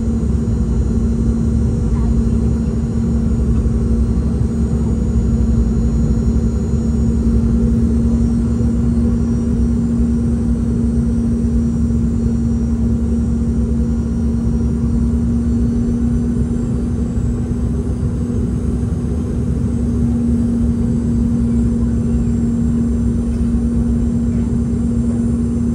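Steady cabin drone of a Boeing 717-2BL airliner: rumble of its rear-mounted Rolls-Royce BR715 jet engines and airflow, with a steady low hum on top.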